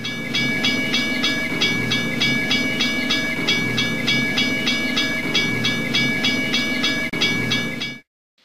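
Train running, with two steady high-pitched tones held throughout over an even clicking of about four clicks a second and a deeper pulse about once a second. It cuts off suddenly near the end.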